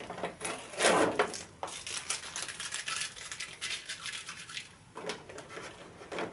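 Scratchy, crackly rustling of masking tape being peeled off a plastic cutting mat, with hands handling the mat; it goes on for about four seconds, then dies down to a single short rustle.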